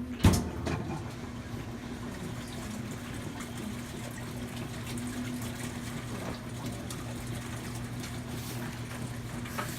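Top-loading washing machine running with a tub of hot water and bleach, water churning over a steady motor hum as it agitates. A sharp click sounds just after the start.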